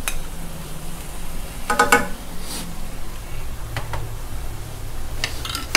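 A few light clinks of a metal spoon against a tin can and pan, one short ringing clink about two seconds in, over a steady low hum of the pan simmering on the gas stove.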